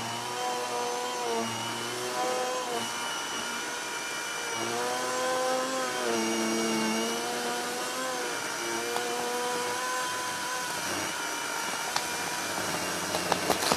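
Electric chainsaw motor running with a steady whine whose pitch dips and recovers several times, with a few sharp clicks near the end.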